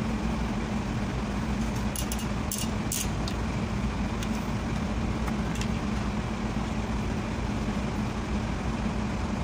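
Sharp metal clicks and taps from a long pry bar worked against a seized rear drum-brake adjuster and wheel cylinder on a truck: a cluster about two to three seconds in, then a couple more. A steady low hum runs underneath.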